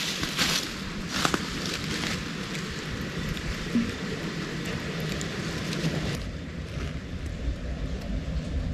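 Steady rush of the East Verde River flowing, with a few crisp crunches of dry fallen leaves and grass being stepped on during the first two seconds.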